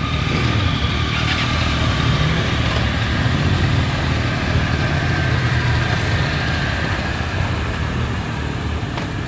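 Motorcycle engine running at low revs close by, a steady deep rumble that fades slightly near the end.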